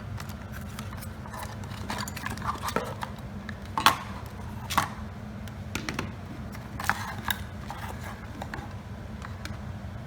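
Packaging being handled during unboxing: scattered rustles and sharp clicks, the loudest about four and five seconds in, over a steady low hum.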